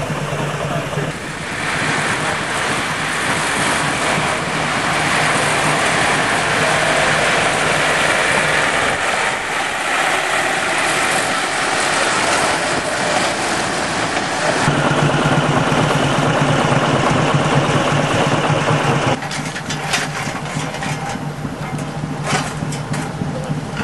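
Narrow-gauge railway locomotive's engine running, a steady low hum under a broad even noise, with a run of sharp clicks and knocks over the last few seconds.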